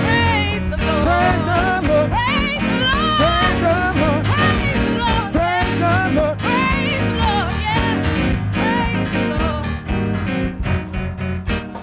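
Gospel music: a singer's voice sliding and ornamenting freely over a live band with a steady bass line, the band thinning out near the end.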